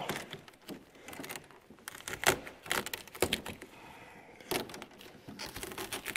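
Gorilla tape being peeled off a cracked plastic snowmobile hood: irregular crackles and sharp clicks as the strongly stuck tape pulls away from the plastic.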